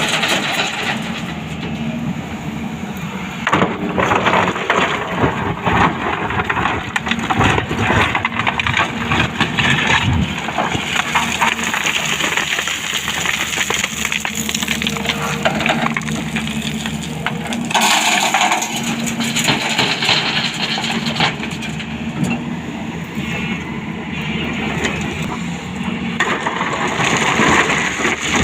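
Excavator at work: its diesel engine runs steadily under dense, continuous crunching and cracking of material being broken and moved.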